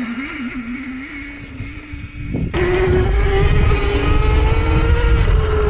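Rizzler electric minibike's motor whining as the bike is ridden in donuts through snow. About two and a half seconds in the throttle opens: the whine jumps higher and louder, and a heavy low rumble comes in with it.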